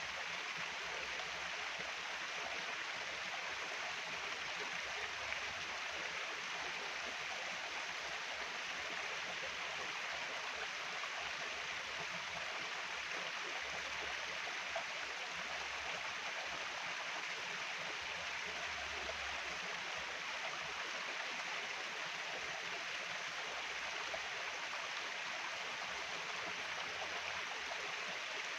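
Flowing stream water rushing steadily, an even hiss with no breaks.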